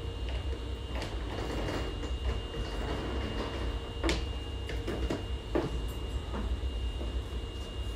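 Platform ambience beside a stationary Osaka Metro 22 series subway train: a steady low hum and a thin, high steady tone, with scattered light knocks and clicks.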